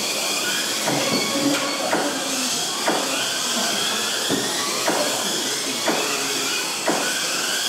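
Several Kyosho Mini-Z RC cars racing: the whine of their small electric motors rising and falling with throttle over a steady hiss, with sharp knocks about once a second.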